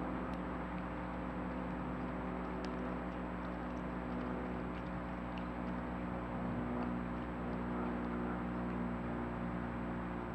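Steady low hum and hiss with a thin constant high whine, broken by a few faint scattered ticks.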